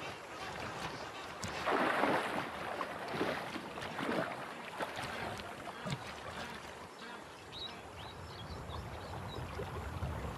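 River water splashing and sloshing as a large Nile crocodile moves through the shallows with a hunk of hippo carcass in its jaws, with the loudest surge of splashing about two seconds in and smaller splashes after.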